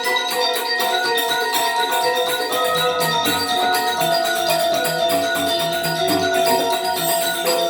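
Balinese gamelan playing legong dance accompaniment: bronze metallophones and gongs ringing in a dense, fast interlocking pattern over sustained ringing tones.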